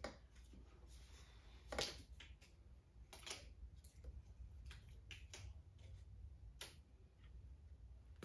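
Faint, scattered light clicks and taps of small objects being handled and set down on a table, over a steady low room hum.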